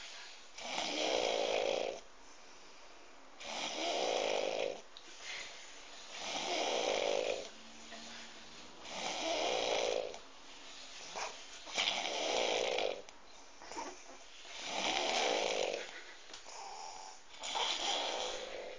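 A drunk person snoring in sleep: seven long snores, each over a second, coming evenly about every three seconds. A few small clicks fall between some of them.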